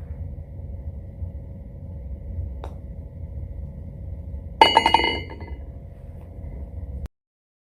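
A golf ball dropping into the cup with a sharp, rattling clink about four and a half seconds in, ringing briefly. A faint tick comes earlier, over a low steady background rumble that cuts off suddenly near the end.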